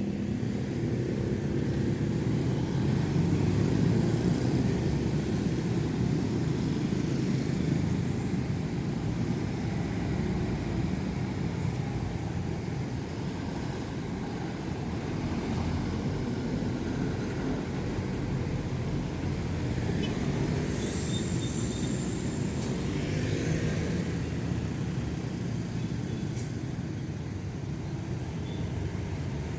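Steady roadside traffic, with motorcycles and cars passing continuously on a busy main road. A brief high hiss comes about two-thirds of the way through.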